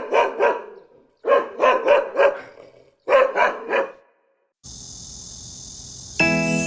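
A dog barking in three quick bursts of three, four and three barks. A steady hiss follows, and music with bell-like notes comes in near the end.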